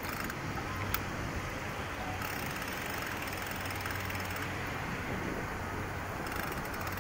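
Steady rolling noise of a bicycle riding over paving slabs, with one sharp click about a second in.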